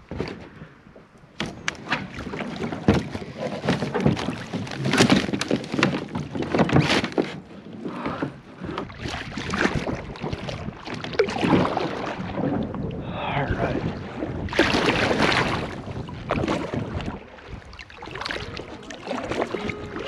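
A plastic Lifetime sit-on-top kayak being boarded and pushed off from a brushy bank: irregular knocks, scrapes and rustles of the hull and gear against branches, with water splashing and paddle strokes.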